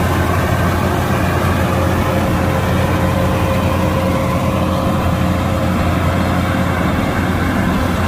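Kubota combine harvester's diesel engine and machinery running steadily, a constant loud low hum with a steady higher tone over it.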